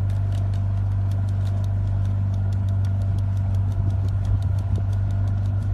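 A steady low motor hum with fast, evenly spaced faint ticking.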